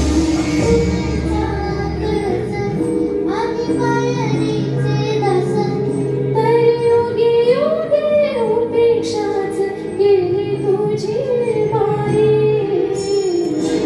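Female voice singing a Marathi song over instrumental accompaniment, the sung line coming in about three seconds in.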